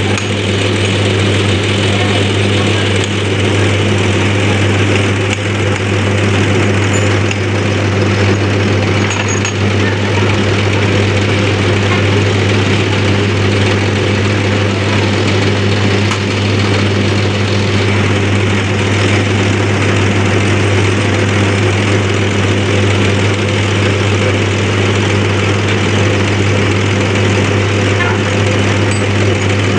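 Diesel injection pump test bench running steadily, its drive spinning an inline diesel injection pump that pumps test oil through the delivery lines into the measuring glasses: an even, unchanging hum.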